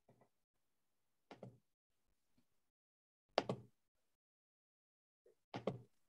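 Three short clusters of knocks or clicks about two seconds apart, each of two or three quick strokes, with near silence between them.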